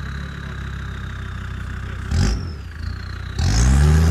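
Land Rover Discovery Td5's 2.5-litre five-cylinder turbodiesel running at low revs, blipped briefly about two seconds in, then revved hard with rising pitch near the end as the truck pulls forward. A thin high whine runs over the engine.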